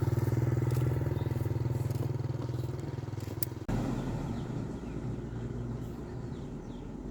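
Motorbike engine running steadily, with an abrupt change in its sound a little past halfway.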